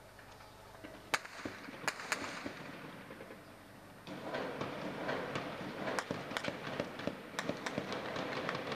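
Distant gunfire in a city: single sharp shots at irregular intervals, with a steady hiss in the background that grows louder about four seconds in.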